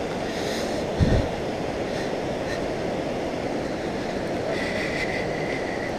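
Steady rushing of a rocky mountain river's rapids, with a single low thump about a second in.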